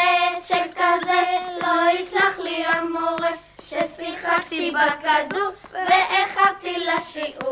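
Children's voices singing a Hebrew song, holding steady notes between short breaks. The lines are about being late to class for playing ball and fearing the teacher won't forgive it.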